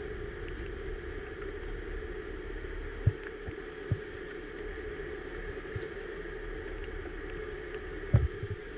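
Heavy wrecker's diesel engine running steadily, with a few dull low thumps about three and four seconds in and a louder one near the end.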